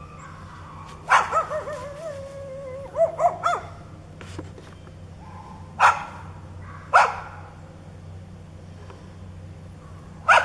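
A dog barking: one long wavering bay about a second in, a quick run of short barks around three seconds, then three single sharp barks spaced a second or more apart.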